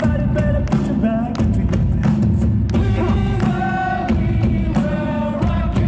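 Live band playing amplified music with electric guitars, bass and drums, with singing over it and regular drum hits.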